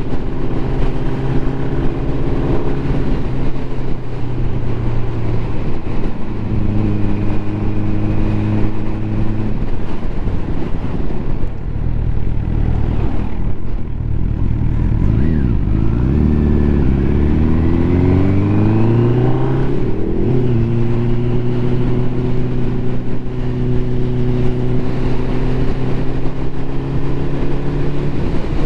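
Four-cylinder motorcycle engine under way with wind rush, running on all four cylinders again after a misfire had dropped it to three. It cruises steadily, eases off about halfway through, then the engine note rises as it accelerates before settling to a steady cruise for the rest.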